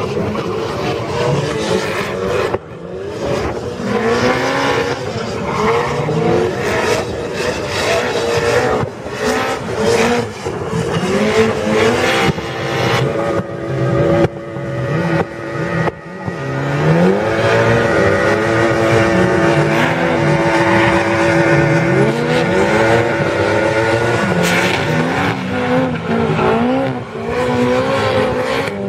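Drift cars sliding in tandem, their engines revving up and down with tyres squealing, and a long steady note held for several seconds about halfway through.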